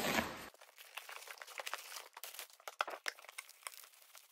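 Cardboard box and foam packing being handled: light, irregular crinkles and small clicks.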